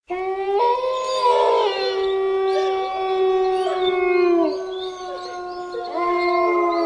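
Several canines howling together: long drawn-out howls overlapping, one sliding down in pitch about four seconds in and a fresh howl starting about six seconds in.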